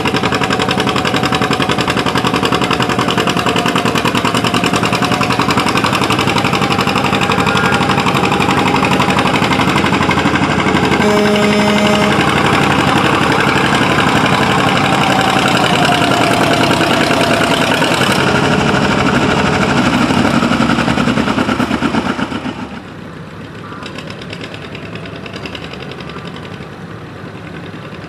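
Farm pulling tractor's diesel engine running hard and loud, with a thin whine above it. About 22 seconds in the sound drops sharply to a much quieter running engine.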